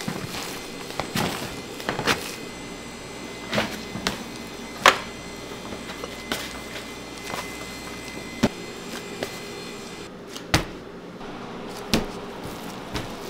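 Irregular knocks and taps of hands and tools on a work surface during bakery work, one every second or two, the loudest about five seconds in, over a steady hum of kitchen machinery.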